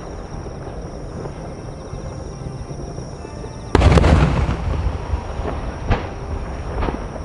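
Large aerial firework shells bursting: a pair goes off together about three and a half seconds in with one heavy boom and a sharp crack, followed by a rolling rumble. Two lighter sharp reports come near the end.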